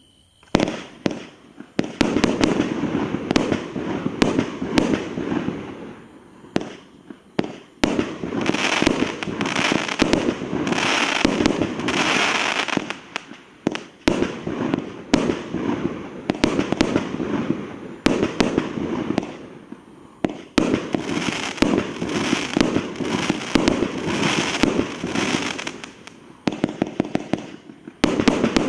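Night Star King Kong 78-shot compound barrage cake firing: a rapid run of shots launching and bursting, over a fizzing crackle, in several volleys with brief lulls between them.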